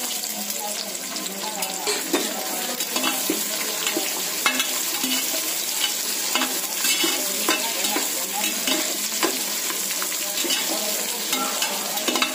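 Sliced onions sizzling steadily in hot oil with whole spices in a metal pressure cooker pot, stirred with a perforated steel ladle that scrapes and clinks against the pot again and again.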